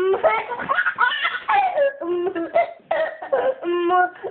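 A baby giggling in repeated bursts of laughter, with quick stuttering runs of giggles about two seconds in and again near the end.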